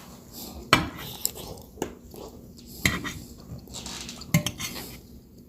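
Dishes and metal cutlery clinking and scraping, with a handful of sharp clinks spread through the few seconds, some ringing briefly.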